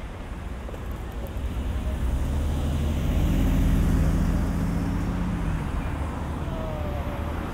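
Large SUV driving close past with a low engine rumble, swelling to its loudest about halfway through and then fading as it moves away, over steady city traffic noise.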